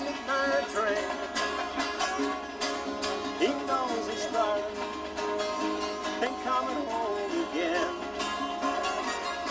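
Country song about a midnight train, with plucked strings carrying an instrumental passage between sung verses.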